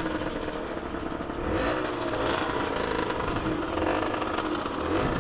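Enduro motorcycle engine idling at a standstill.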